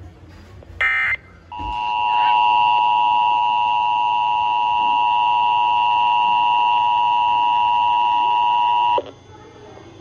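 Emergency Alert System test signal. About a second in, a short burst of the digital SAME header data ends. Then the EAS two-tone attention signal fades in and holds as a steady, harsh dual tone for about seven seconds before cutting off suddenly.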